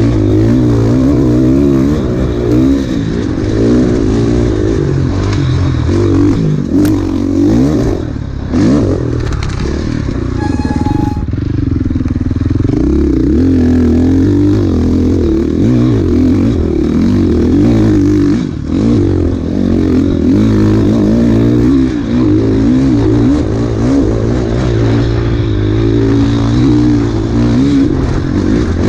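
Enduro dirt bike engine being ridden hard, its pitch constantly rising and falling as the throttle is worked and gears change, with a short easing off about eight seconds in.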